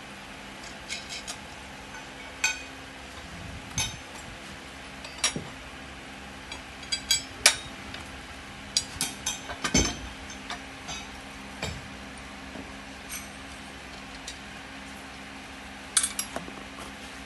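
Black steel bracket pieces being handled and fitted together by hand, giving irregular metal clinks and knocks, some in quick clusters, over a steady low hum.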